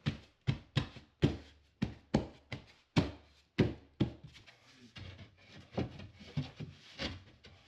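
A string of irregular knocks and taps, a few a second: a cut piece of drywall being pushed and tapped into a patch hole in the wall.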